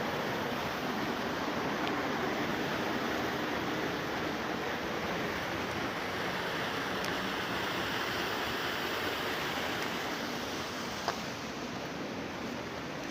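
Running water rushing steadily, with one sharp click near the end.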